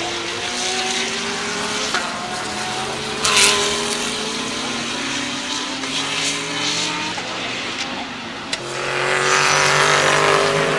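GT3 race car engines running hard on track, their note climbing as they accelerate. One car passes loudly about three and a half seconds in, and a louder pass builds near the end.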